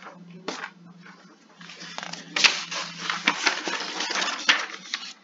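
A dense run of crackling, rustling and sharp clicks close to the microphone, starting about two seconds in, over a low steady hum.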